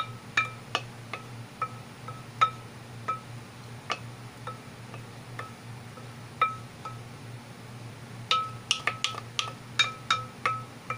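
A spoon clinking against the rim and sides of a ceramic bowl as thick squash purée is scraped out, each tap ringing briefly at the bowl's pitch. The taps come in quick runs near the start and again near the end, sparse in between, over a steady low hum.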